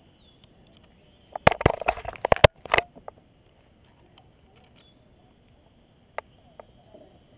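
Steel rigging hardware (shackle and eye bolt) clinking and clattering in a quick cluster of sharp metal knocks as it is handled, about a second and a half in, followed by one more sharp click near the end.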